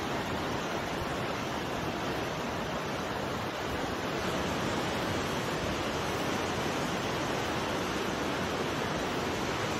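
Strong storm wind blowing steadily, buffeting the phone's microphone, with the surf of a rough sea mixed in.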